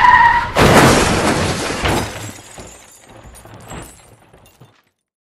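Car tyres squealing in a skid, cut off about half a second in by a loud crash as the car hits a tree. The crash brings breaking glass and a second smaller knock, then scattered tinkling debris that dies away.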